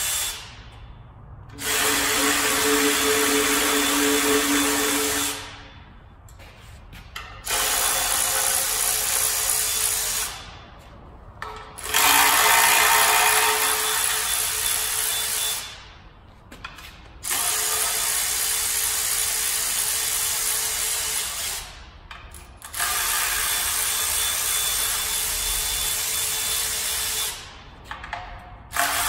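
Cordless power tool spinning out the oil pan bolts in about six runs of three to five seconds each. Each run winds down into a short pause before the next.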